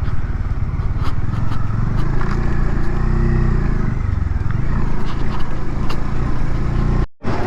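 Motorcycle engine running while riding, with heavy wind rumble on the microphone; the engine note rises and falls back once in the middle. The sound cuts out for a moment near the end.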